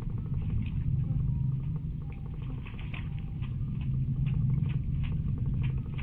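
Common blackbird bathing in a shallow puddle: a quick run of splashes and water patter as it flicks water with its wings, about three or four a second, over a steady low hum.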